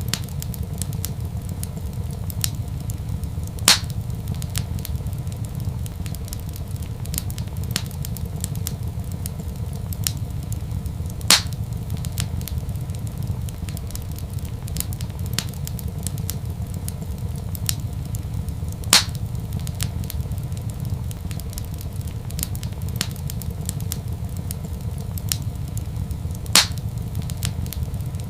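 Wood fire crackling in a fireplace over a steady low rumble, with many small crackles and four louder pops evenly spaced about every seven and a half seconds.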